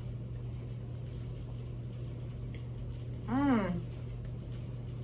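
Steady low hum in the background, with one short voiced "mm" from a woman about three and a half seconds in, its pitch rising and then falling.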